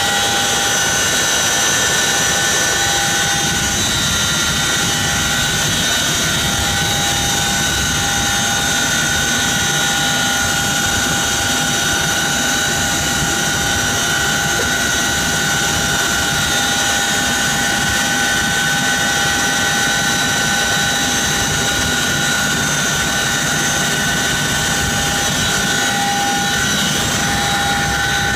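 CH-47 Chinook helicopter running, heard from inside its cargo bay by the open rear ramp: a steady turbine whine with several high tones over heavy low rotor and engine noise, level throughout.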